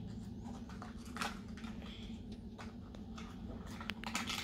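Faint scattered rustles and clicks of a small cardboard toy blind box being picked at and opened by hand.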